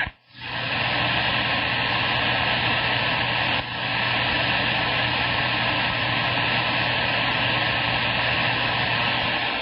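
Steady hiss of CB radio static from the receiver with a faint low hum, starting abruptly just after the previous transmission ends, between stations talking.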